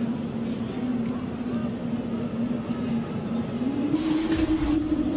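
A 'strange sound in the sky': a long, low, horn-like drone held steady over background noise, rising to a higher steady pitch about three and a half seconds in. It is heard as haunting.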